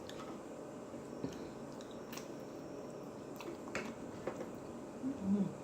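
Close-up chewing and mouth sounds of someone eating: scattered soft wet clicks and smacks, spaced irregularly.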